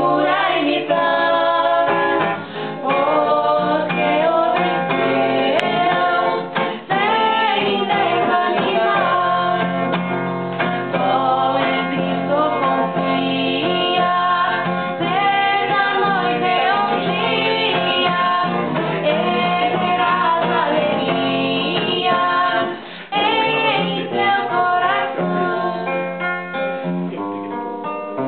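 A woman singing a Christian hymn solo, with plucked acoustic guitar accompaniment.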